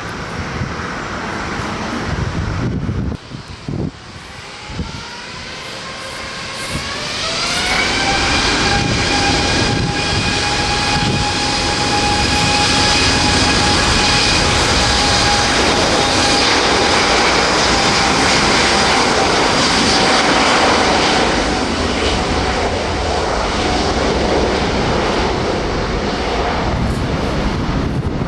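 Jet airliner engines spooling up with a rising whine, then running steady and loud at takeoff thrust before slowly easing off near the end.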